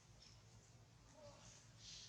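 Near silence: faint background ambience with a few faint short high chirps and a brief soft hiss near the end.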